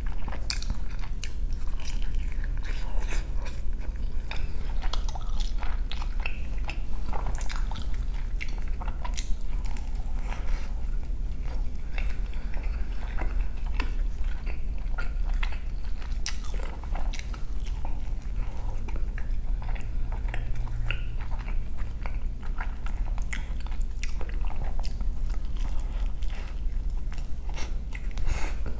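Close-miked biting and chewing of a breakfast burrito in a flour tortilla: many short wet mouth clicks and smacks in an uneven run.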